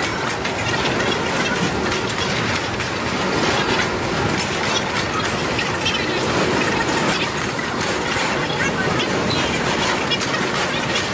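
Freight train of hopper cars rolling slowly past across a level crossing. The wheels rumble and clatter over the rails and the crossing, steady throughout.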